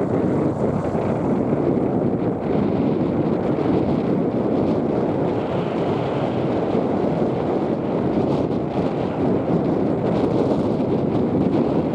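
Strong wind buffeting the microphone: a steady, loud rushing noise with no distinct events.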